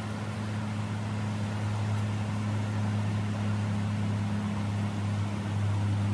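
Rushing floodwater of a river in spate, a steady noise, with a steady low mechanical hum running under it.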